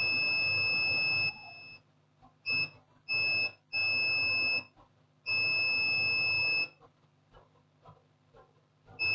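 Multimeter continuity beeper sounding a steady high beep in about six uneven stretches, some brief and some over a second long, as the probes touch and lift off a ceramic capacitor on an ECU board. The beep signals near-zero resistance: the capacitor reads as shorted.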